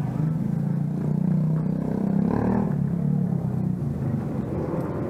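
Motor vehicle engine running with a steady low drone, swelling a little between two and three seconds in.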